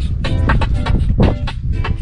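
Upbeat dance music with a heavy bass and a quick, even beat.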